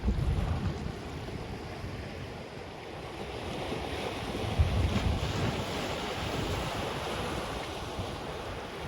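Ocean waves breaking and washing up on a black sand beach, swelling louder around the middle. Gusts of sea breeze buffet the microphone with low rumbles at the start and again about halfway through.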